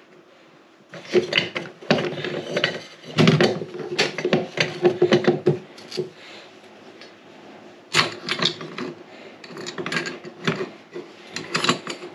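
Irregular clatter of small hard items clicking and knocking together as a child handles food and puts it into a pot, in several bursts with short pauses between.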